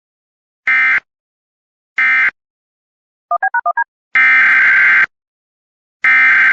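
Emergency Alert System SAME digital data bursts: two short end-of-message bursts about a second apart, then a quick run of six DTMF touch-tones about three seconds in, then two longer SAME header bursts about two seconds apart that open the next alert.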